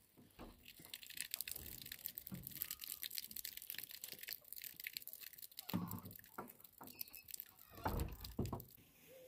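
Crunching and crackling of footsteps on dry, gritty dirt ground, with two dull thumps near the end.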